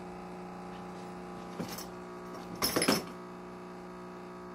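Steady electric hum from the running Magnehelic leak tester, with a single click about a second and a half in and a brief clatter of hands handling the saxophone neck near the middle.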